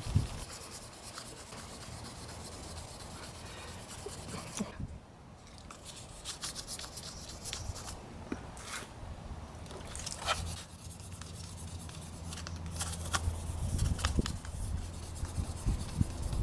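A hand rubbing over a plastic car door handle: dry, scratchy strokes, quick and continuous for the first few seconds, then after a short pause coming in scattered bursts. This is the handle being worked over by hand to deal with its peeling clear coat.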